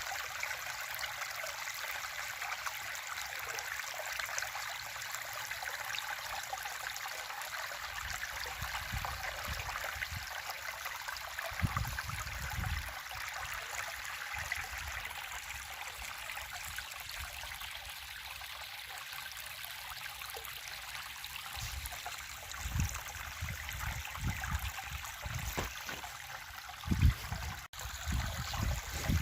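River water flowing over stones, a steady rushing and burbling. A few short low rumbles break in, mostly in the last several seconds.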